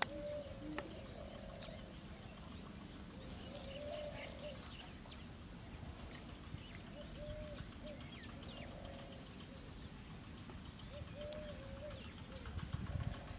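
Birds calling: short, low, arched call notes in twos and threes every few seconds, with scattered faint high chirps over a low rumble of background noise.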